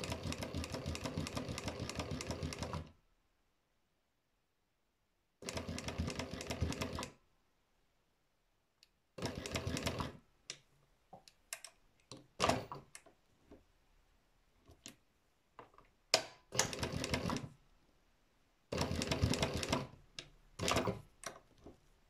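Industrial embroidery sewing machine stitching in bursts of rapid, even ticking, the longest about three seconds, stopping and starting repeatedly with short clicks in between as the fabric is guided under the needle.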